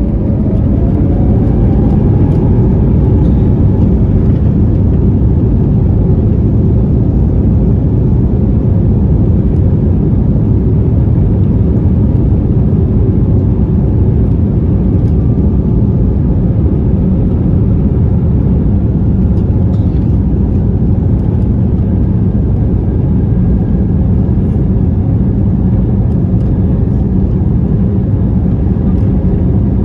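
Airbus A321neo's Pratt & Whitney PW1100G geared turbofans heard from inside the cabin, spooling up to takeoff thrust with a whine that rises in pitch over the first few seconds. They then run steady and loud over a dense low rumble as the airliner rolls down the runway.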